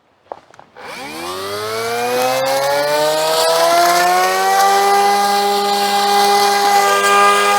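Cordless battery-powered grass trimmer's electric motor starting after a couple of faint clicks, its whine rising in pitch as the flat blade spins up, then running steadily at full speed.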